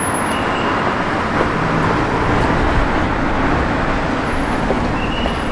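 City road traffic: a steady rush of tyre and engine noise from cars passing close by on the street, swelling at the start and then holding.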